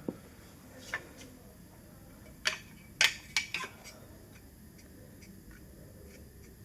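A few sharp clicks and clacks of hard objects knocking together, the loudest a quick cluster about two and a half to three and a half seconds in.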